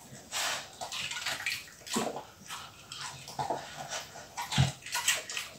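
Staffordshire bull terrier eating cucumber from a stainless steel bowl: irregular wet chewing and licking, with a louder thump about four and a half seconds in.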